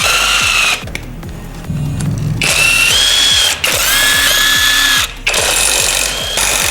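Electric drill or power screwdriver running in several short bursts with a steady high whine, each burst stopping suddenly, as fasteners come out of the motorcycle engine's casing.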